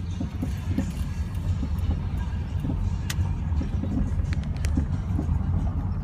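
Steady low rumble of a car rolling slowly, heard from inside the cabin.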